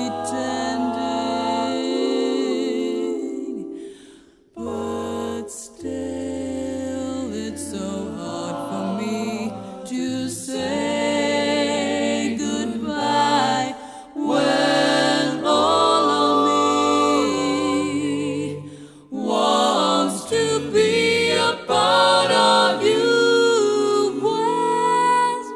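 Music with layered singing voices holding notes in harmony over a low bass line, briefly dropping away about four seconds in and again near nineteen seconds.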